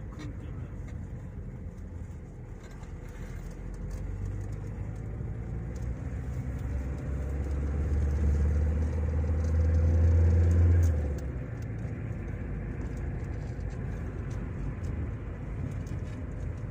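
Car on the move, heard from inside the cabin: a steady low rumble of engine and road noise. A deeper hum swells from about four seconds in, grows loud, and cuts off abruptly about eleven seconds in.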